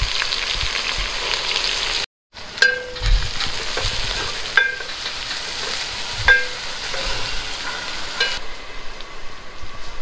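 Whole spices sizzling in hot mustard oil in a pan while being stirred. After a brief break about two seconds in, a metal ladle strikes the pan three times, each strike ringing briefly over the steady sizzle.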